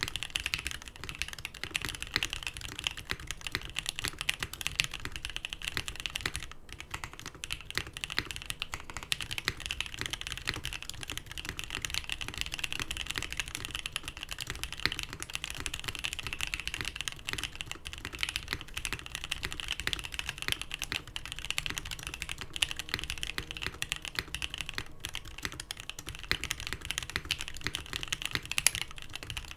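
Continuous fast typing on a Frog TKL custom mechanical keyboard: lubed NK Black Dry linear switches in an aluminium leaf-spring plate, with GMK keycaps and Durock stabilisers. A dense stream of key clacks breaks off briefly about six and a half seconds in.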